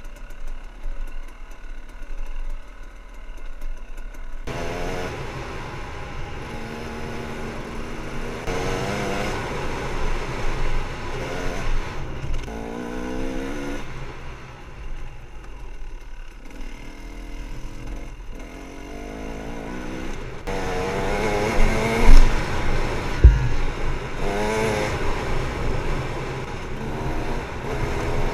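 Husaberg TE300 two-stroke enduro bike's engine being ridden off-road, heard from the rider's helmet: quieter for the first few seconds, then revving up and falling back over and over as the throttle is worked. Two sharp knocks about a second apart late on are the loudest sounds.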